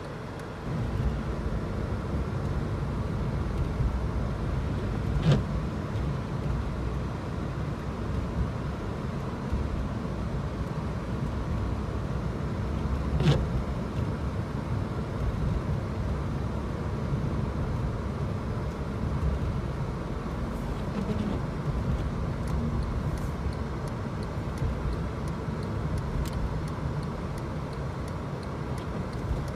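A car driving with steady low road and engine rumble. Two sharp brief knocks come about 5 and 13 seconds in.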